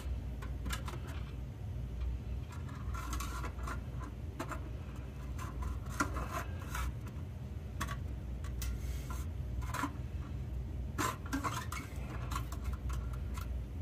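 Handling sounds from a copper wire with string tied to it being fed and pulled through a hole in a car's frame: scattered light clicks, taps and rubbing of wire against metal. A steady low hum runs underneath.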